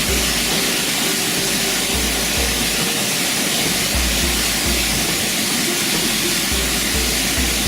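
Steady rushing of a waterfall, with background music over it: a deep bass pulsing in a regular beat and faint melody notes.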